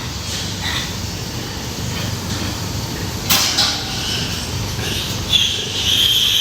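Pig-pen sounds: a steady low rumble, a sharp knock about three seconds in, and a loud high squeal near the end, typical of pigs.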